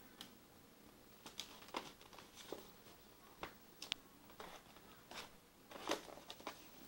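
Faint, irregular clicks and rustles from a handheld camera being moved around a bicycle and handled, about a dozen small ticks spread through the stretch.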